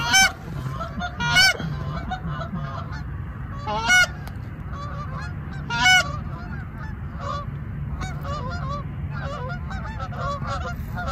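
Canada geese honking: a constant chorus of fainter honks from the flock, with four loud, close honks standing out in the first six seconds.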